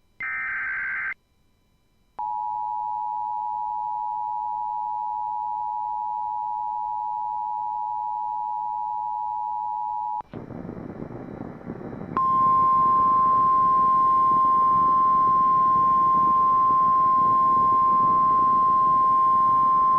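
Emergency Alert System broadcast tones: a short warbling burst of the digital SAME header data, then the two-tone EAS attention signal held for about 8 seconds. After a couple of seconds of radio static, a single steady NOAA Weather Radio 1050 Hz warning alarm tone sounds over hiss.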